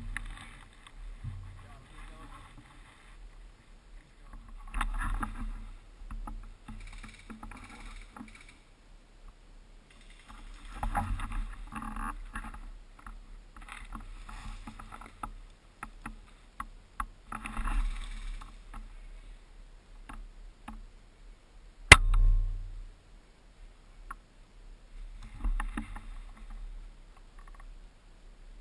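A single sharp crack of a Tokyo Marui VSR-10 spring-piston airsoft sniper rifle firing, about two-thirds of the way through, with a short low thud after it. Soft rustling and handling noise comes and goes around it.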